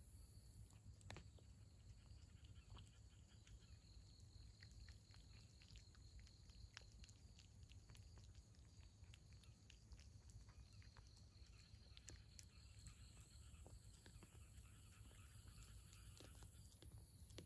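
Faint sounds of a cat eating: scattered small clicks and crunches as it chews dry kibble and wet pouch food from a plate.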